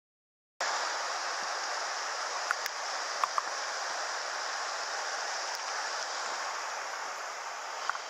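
Silence, then about half a second in the steady rush of a mountain river running over a stony bed starts abruptly. A few sharp clicks stand out over it around the middle and near the end.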